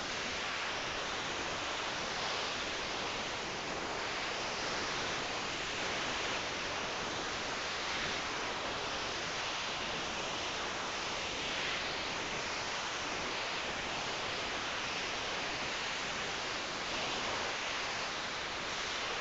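A sleeping person's slow breathing: faint swells about every five or six seconds under a steady hiss.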